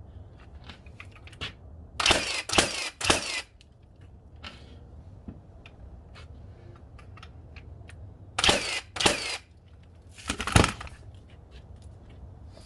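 Battery-powered framing nailer firing 3-1/4" nails into a wooden fence: three quick shots about two seconds in, two more near eight and a half seconds, and another near ten and a half, with small clicks between.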